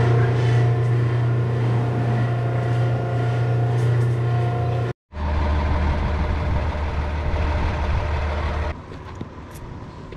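A loud steady machine hum in a dairy barn for about five seconds, then the low steady running of a milk tanker truck's diesel engine, which cuts to a quieter outdoor background near the end.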